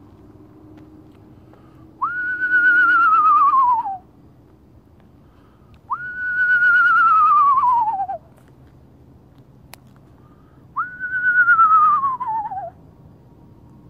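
A man whistling an imitation of an owl's call, three times. Each call jumps up sharply, then slides down in a quavering whinny.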